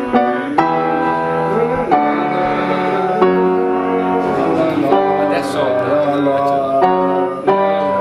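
Piano being played, a run of chords changing about once a second.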